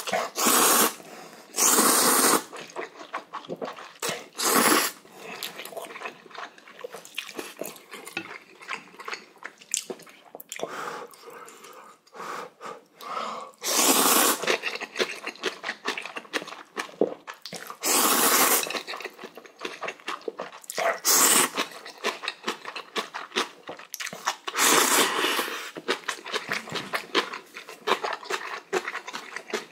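A man slurping mouthfuls of instant ramen noodles from chopsticks, about seven loud slurps spread through, with chewing between them.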